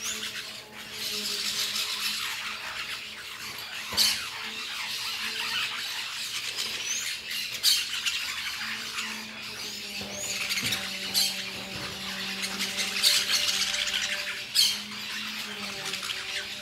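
A flock of parakeets feeding at a bunch of bananas, squawking and screeching in a continuous harsh chatter. A few sharp knocks stand out, and a low steady hum runs underneath.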